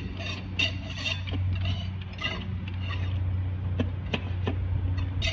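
TH350 forward clutch plates being turned and worked by hand into the clutch drum, metal scraping with a few sharp clicks near the end as the teeth line up and drop a notch. A steady low hum runs underneath.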